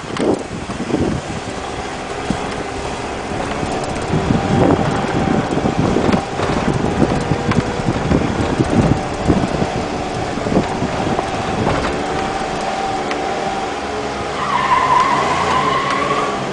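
Toyota RAV4 engine running under load while driving over rough off-road ground, with frequent short knocks and thumps. A higher whine comes in near the end.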